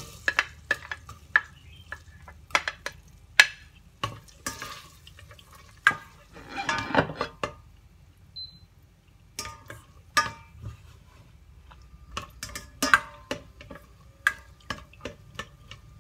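A spoon clicking and scraping against a stainless-steel saucepan as garlic is stirred into melted butter, in irregular taps with a longer scrape about seven seconds in, over a light sizzle.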